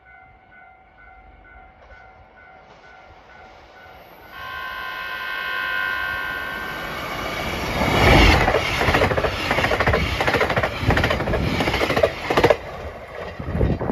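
A faint repeating tone, then a train horn held for about two and a half seconds, growing louder. A JR Hokkaido train then passes at speed, its wheels clattering rhythmically over the rails for about four seconds before the sound falls away.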